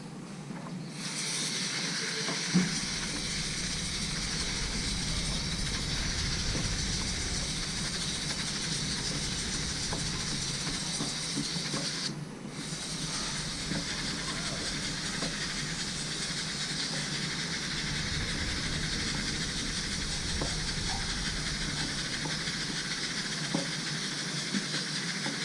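Aerosol chain lube spraying onto a motorcycle drive chain as one long steady hiss, with a short break about halfway through.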